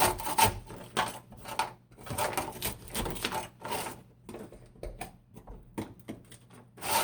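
Irregular scraping and pulling at the heavy, rubbery sound-deadening coating on a rusted truck cab floor, in uneven strokes.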